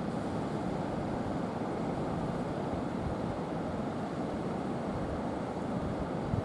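Steady low rumble of wind buffeting the microphone, mixed with the wash of surf on the rocks.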